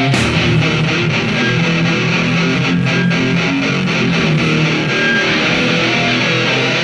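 A live band playing loud, steady music led by strummed electric guitars.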